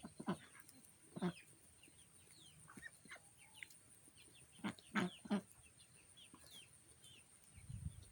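Backyard chickens clucking softly while feeding: a few short clucks, with a group of three about five seconds in, and faint high peeps between them.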